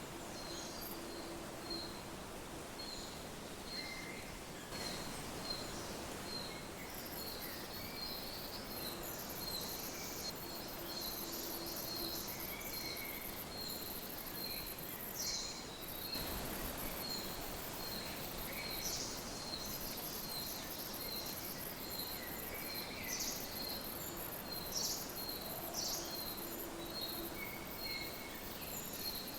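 A spring river running steadily, with birds calling over it. One short high note repeats about once a second, among scattered chirps.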